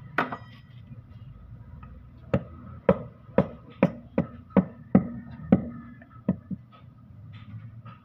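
Sharp knocks of metal on the housing of a Mitsubishi Canter steering gearbox being dismantled: one hard knock at the start, then about ten more in quick succession, about two a second, each with a short metallic ring.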